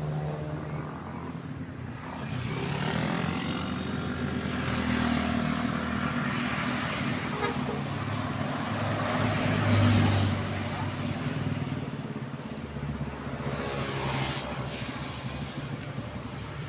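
Passing road traffic from a bus convoy: an engine's steady hum and tyre noise, growing louder about ten seconds in as a vehicle goes by.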